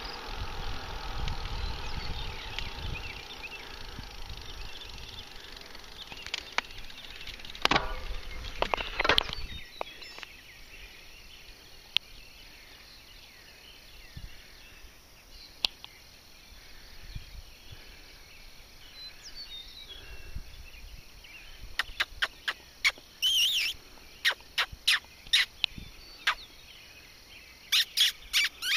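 Wind buffeting the microphone and road noise while riding a bicycle, ending abruptly about ten seconds in. Then a quieter outdoor background with a rapid string of sharp clicks near the end.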